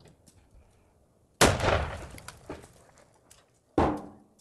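Two revolver shots about two and a half seconds apart, each a sharp crack that fades away over the following half second or so.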